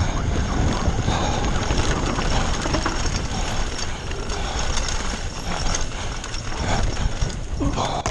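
Foes Hydro 2 downhill e-bike clattering and rattling at speed over a rough dirt trail: tyres, chain and suspension knocking, with a heavy rumble of wind and jolts on the camera. The noise drops away abruptly right at the end.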